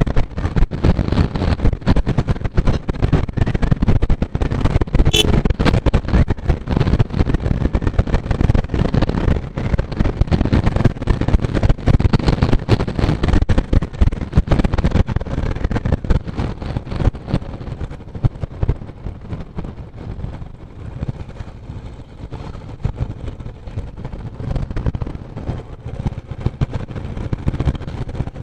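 Rumble of a moving motorcycle with heavy wind buffeting on the microphone, easing off in the last third.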